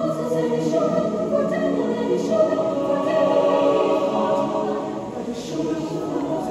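Mixed choir singing long held chords with no distinct words, swelling a little midway.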